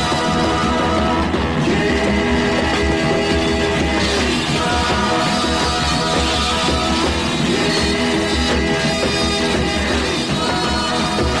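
Late-1960s psychedelic rock recording playing steadily with a full band and a steady beat, possibly with singing.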